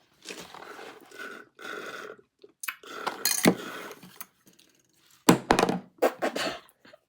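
Kitchen handling noises: containers and utensils knocking and clinking on a counter, with rustling in between and a louder cluster of knocks in the second half.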